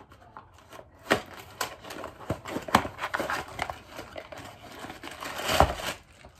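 Small cardboard box being handled and opened by hand, with sharp taps and clicks of long fingernails on the cardboard as the top flap is worked open. A louder rustle comes near the end.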